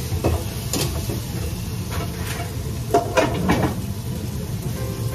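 Commercial kitchen at work: a steady low rumble with some frying sizzle, broken by clinks and clatters of a metal ladle and utensils against pots and bowls, a quick run of them about three seconds in.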